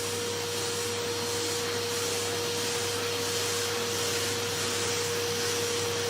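An electric appliance motor running steadily: an even rush of air with a constant mid-pitched hum underneath.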